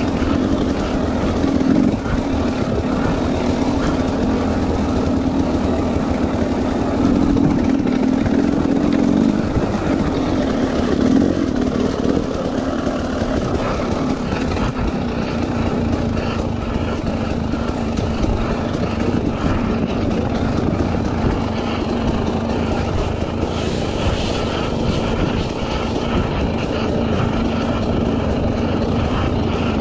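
Dirt bike engine running at fairly even revs as the bike is ridden, a little louder during the first ten seconds or so.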